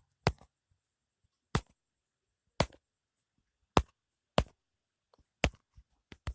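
A series of about seven sharp, dry clicks, irregularly spaced roughly a second apart with a quick pair near the end, made while operating the device to navigate back through an app.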